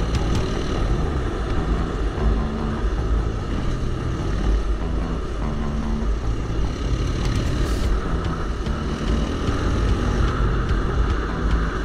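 Off-road motorcycle engine running on a trail ride. The engine note shifts up and down over a heavy low rumble, with a brief scrape or rustle about eight seconds in.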